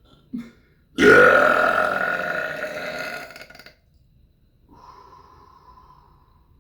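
A long, loud human burp that starts suddenly and tapers off over almost three seconds, followed by a soft spoken "yeah".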